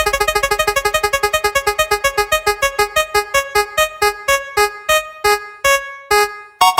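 Spinning prize-wheel sound effect: a rapid run of short electronic piano-like plinks that slows steadily as the wheel winds down, then a louder chime near the end as it stops.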